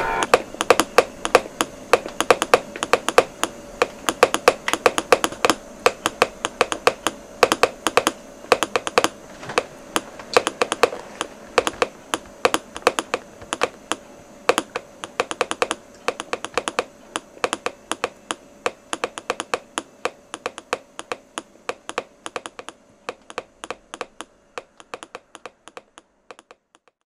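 Rapid, irregular clicking, several clicks a second, like typing on a keyboard, over a faint steady hum, slowly fading out until it stops near the end.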